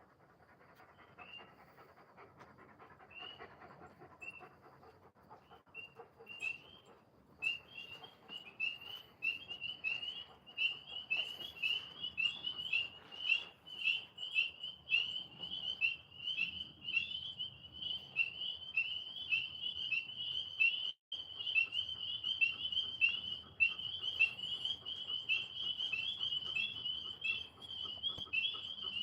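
Tree frogs calling in a chorus of rapid high chirps, starting about seven seconds in and building to a steady din. A dog pants softly during the first few seconds.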